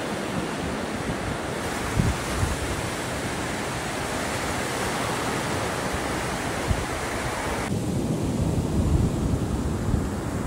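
Ocean surf washing up a sandy beach, with wind buffeting the microphone in low thumps. A little past two-thirds of the way through, the sound shifts to heavier, lower surf and more wind rumble.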